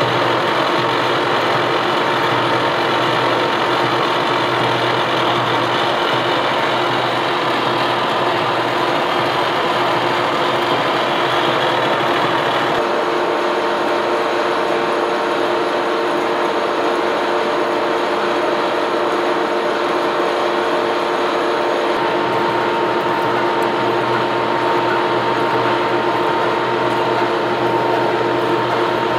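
Lucas 441B-48 horizontal boring mill's 8-inch face mill cutting across a steel angle plate: a loud, steady machining noise with a constant hum of tones under it. The upper hiss drops a little about halfway through.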